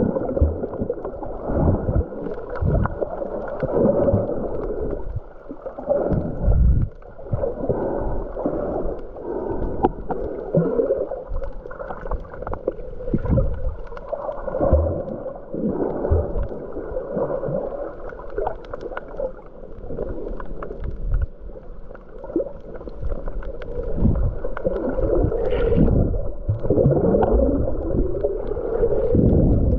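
Muffled water sounds from a camera underwater while snorkeling: sloshing and gurgling bubbles with irregular knocks and a few gliding whooshes.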